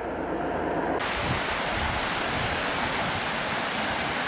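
Steady rush of a brook flowing over rocks, starting abruptly about a second in.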